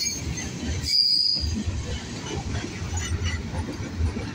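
Freight cars of a Union Pacific manifest train rolling past: a steady, pulsing wheel-on-rail rumble, with a brief high-pitched squeal from the train about a second in.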